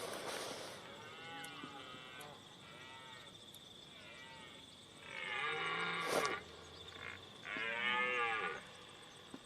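Deer calling: a series of short calls that rise and fall in pitch, faint at first, then two louder, longer calls about five and seven and a half seconds in.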